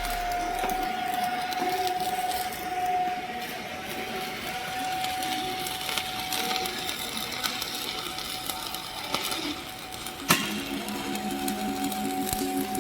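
Electric welding arc crackling irregularly, with one sharp click about ten seconds in, over a faint steady tone.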